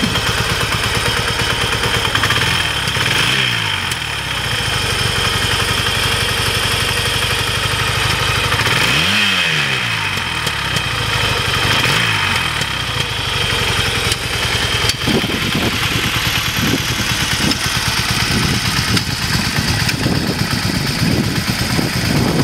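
1983 Yamaha XS650's 650 cc parallel-twin engine idling, blipped lightly a few times so its pitch rises and falls.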